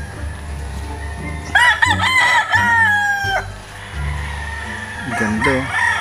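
Gamefowl rooster crowing once: a long call of about two seconds that wavers at the start, then holds and drops at the end. Another crow begins near the end.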